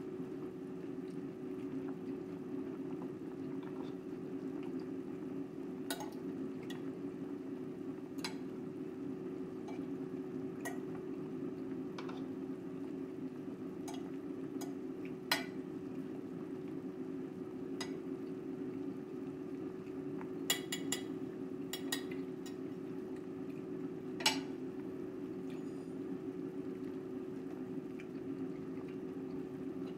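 A fork and spoon clinking and scraping against a ceramic plate about ten times, several in quick succession near the end, over a steady low hum and a pot of soup simmering.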